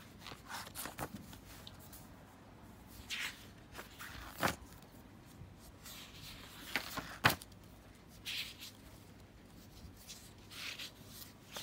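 Paper pages of a spiral-bound sketchbook being turned by hand: a series of short, separate rustles and flaps, the sharpest about four and a half and seven seconds in.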